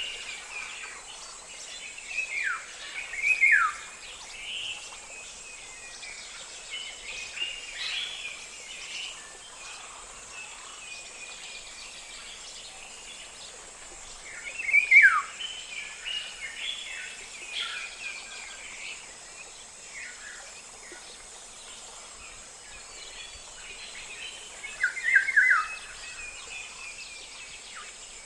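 African golden oriole giving short phrases of quick, steeply falling whistled notes. A phrase comes near the start, another about halfway and another near the end, with fainter chirps from other birds and a steady high hiss behind.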